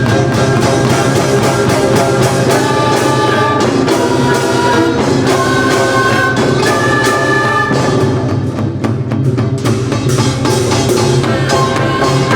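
Korean traditional orchestra playing loudly: rapid, dense percussion strikes drive a rhythm drawn from East Coast shaman ritual music, with held melodic notes from winds and bowed strings over it.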